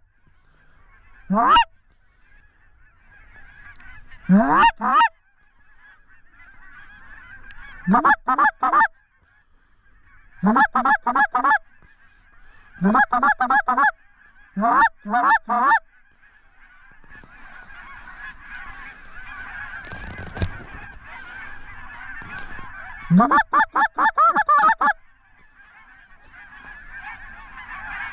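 Geese honking and clucking in quick bursts of several calls every few seconds. Behind them, the many overlapping calls of a large flock build up from about halfway in. A single brief thump comes about two-thirds of the way through.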